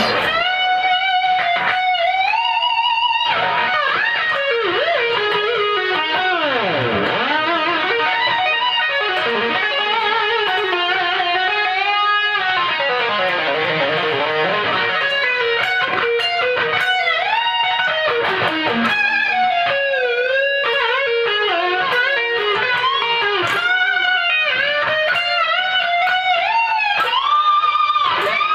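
Fernandes Revolver Pro electric guitar with a Fernandes Sustainer, played through a Marshall JMP-1 preamp: a lead line of long sustained notes with bends and vibrato, a deep whammy-bar dive about seven seconds in, and a long held note near the end.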